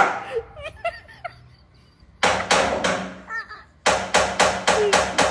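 Rapid, sharp knocking on a door in two bursts: three knocks a little after two seconds in, then a run of about seven more from about four seconds in, with brief voice sounds in between.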